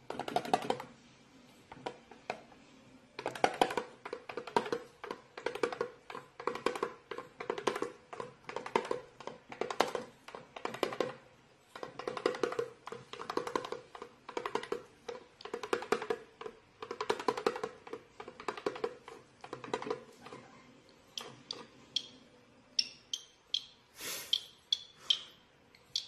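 Cockatiel drumming on a small red Chinese drum, tapping the drumhead with its feet in quick rhythmic runs of beats, each run with a ringing drum tone.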